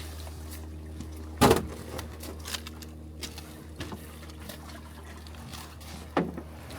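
Small boat's motor running steadily, with water splashing and trickling. A sharp splash or knock about a second and a half in, and a smaller one near the end.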